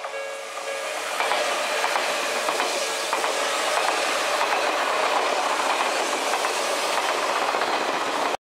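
Odakyu Line train passing over the level crossing: a steady rush of running noise with wheels clacking over the rail joints, building over the first second. It cuts off abruptly near the end.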